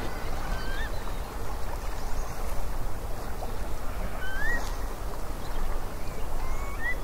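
Steady rushing outdoor noise with a low rumble, and three short rising bird chirps: about a second in, midway through, and near the end.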